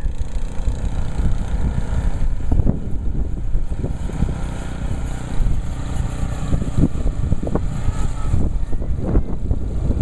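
Gasoline snowblower engine running steadily.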